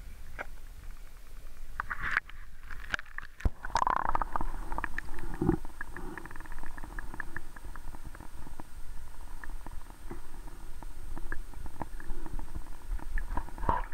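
Muffled underwater gurgling and rumbling picked up by a camera submerged in lake water, with many small clicks and ticks throughout. The sound changes abruptly about two seconds in, as the camera goes under.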